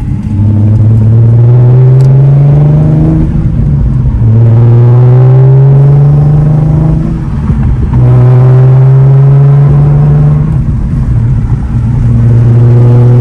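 Supercharged Nissan 370Z's V6 engine accelerating through the gears: four pulls, each a steady rise in pitch over about three seconds, broken by a short dip in pitch at each of three shifts.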